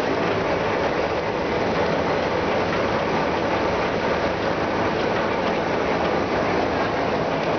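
Flexo printing machine for corrugated board, belt-driven by an electric motor, running with a steady, even mechanical noise.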